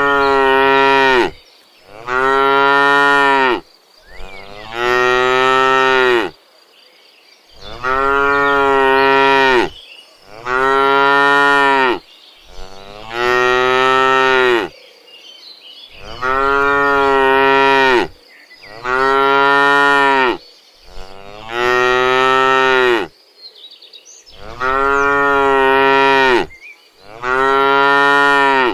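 Cattle mooing: about eleven long, loud moos in a row, one every two to three seconds, each rising briefly in pitch at the start and then held.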